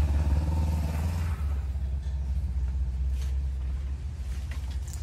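Low rumble, loudest at the start and easing off over the first couple of seconds, with a few faint light clicks later on.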